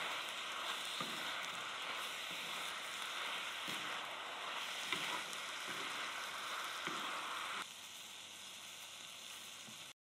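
Pork and vegetables sizzling steadily as they are stir-fried on a cast-iron cauldron-lid griddle (sotttukkeong), with a wooden spatula knocking and scraping against the lid now and then. The sizzle drops somewhat quieter near the end, then cuts off suddenly.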